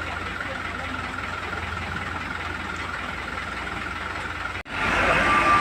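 Heavy diesel engine of construction machinery running steadily at idle. The sound cuts out for an instant about four and a half seconds in, then comes back louder.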